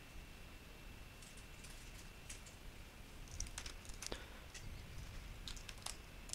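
Faint computer keyboard keystrokes: scattered, irregular taps, some in quick little runs, as a command is typed.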